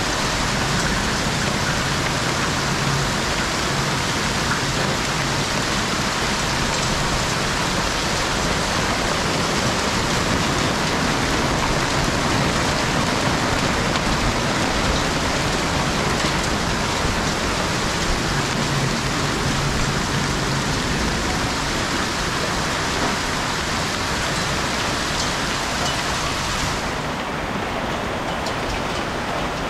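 A hailstorm: dense hail falling steadily, a continuous hiss of hailstones pattering on roofs and the ground. The high part of the hiss thins out a little near the end.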